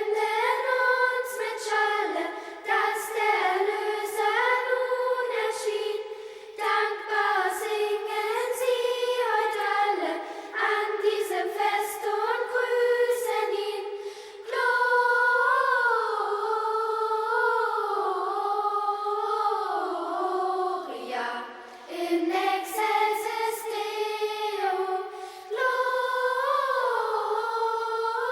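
A choir of high voices singing a song unaccompanied, phrase by phrase, with short breaks for breath.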